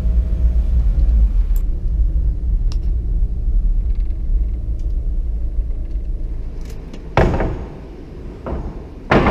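Low, steady engine and road rumble of a small van heard from inside its cabin as it drives slowly, fading after about seven seconds. Then two sharp knocks, one about seven seconds in and one just before the end, as long timber boards are loaded onto the van's roof rack.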